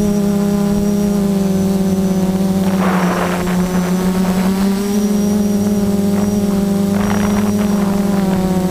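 F330 quadcopter's brushless motors and propellers buzzing steadily in flight, heard from the onboard camera. The pitch shifts slightly, with brief gusty rushes about three and seven seconds in.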